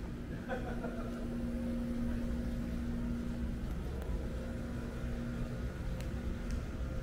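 City street ambience: a steady low rumble of traffic, with a steady hum that stops near the end and a few faint clicks.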